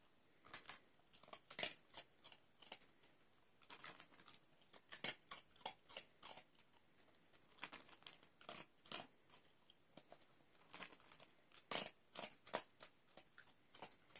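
Jack Russell terrier eating dry kibble from a bowl: quiet, irregular crunching and chewing, one bite after another.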